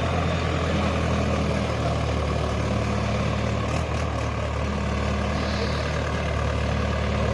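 Tractor engine running steadily with a low, even drone while pulling a mouldboard plough.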